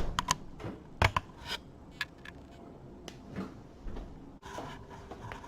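Scattered clicks and short metallic clinks of a screwdriver and sheet-metal parts being handled while the oven's door-lock motor assembly is unscrewed, a few of the clinks ringing briefly.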